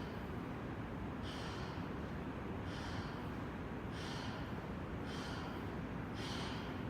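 A person breathing in short, sharp breaths, five in a row at an even pace of about one every second and a quarter.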